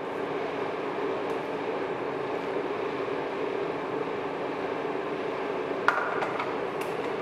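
Wall-mounted hair dryer running steadily with an even blowing hum, with a sharp click near the end.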